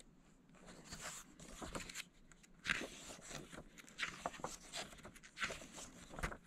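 Paper pages of a comic book being turned and leafed through: faint, irregular rustles and soft flips.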